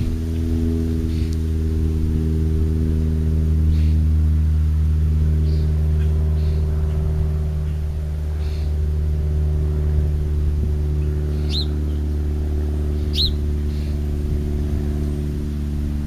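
Steady low engine drone made of several layered tones. Two short, high, rising bird chirps stand out near the end, with fainter chirps earlier.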